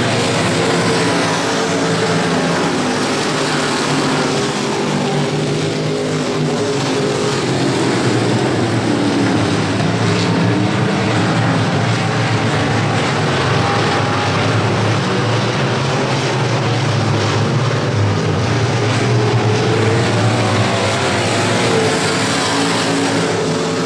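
A field of dirt-track stock cars racing around an oval, their engines running hard together in a steady, loud drone. The engine notes rise and fall as the cars drive through the turns and down the straights.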